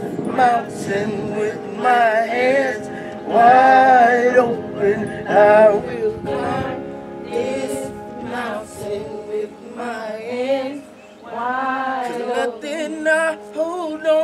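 Gospel worship singing with strong vibrato over sustained held chords.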